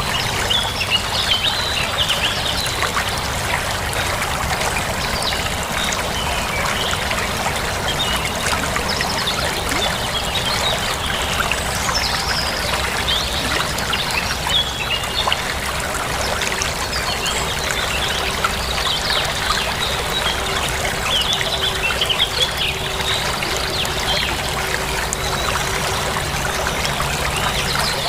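Water trickling and flowing steadily, like a small stream, with birds chirping over it on and off.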